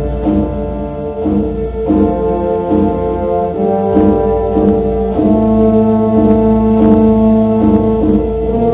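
Concert wind band playing, brass and woodwinds holding slow sustained chords; a fuller, louder chord with lower notes comes in about five seconds in.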